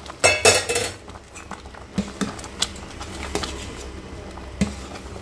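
Metal ladle clattering and scraping against a cooking pot in a burst about half a second in. It then clinks now and then as it stirs roasted dry fruits into thick kheer.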